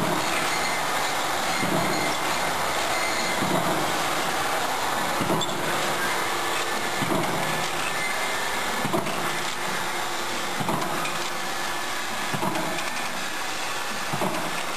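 Aluminium radiator-tube (B-tube) roll-forming machine running, a steady mechanical noise with a short knock about every second and three-quarters.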